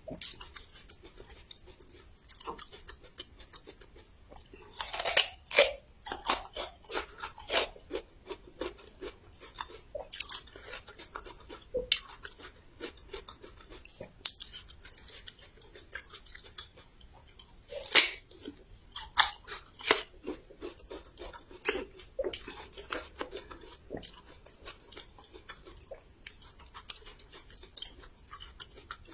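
Close-up crunching of someone biting into and chewing raw young ginger, crisp and crackly, with the loudest bites about five seconds in and again near eighteen seconds.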